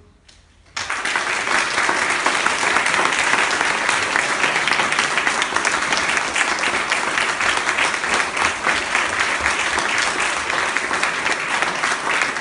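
Audience applauding, breaking out suddenly about a second in and going on steadily.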